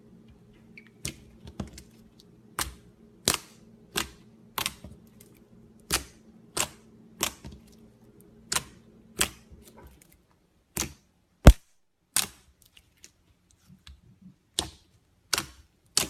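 Toy slime being pressed and poked, letting out a string of sharp clicks and pops about one or two a second, with a short pause near the end and one louder pop about two thirds of the way in.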